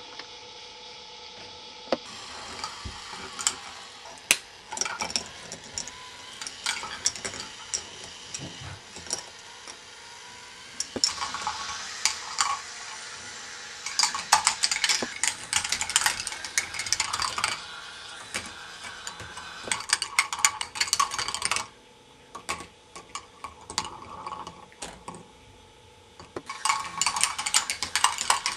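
K'nex ball machine running: plastic balls clattering and clicking along its tracks and lifts, with a faint steady motor hum underneath. The rattling comes in dense spells, with a quieter stretch a few seconds before the end.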